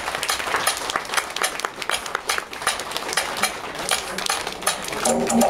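Hand clapping, fast and somewhat uneven, with no melody under it; pitched music comes back in near the end.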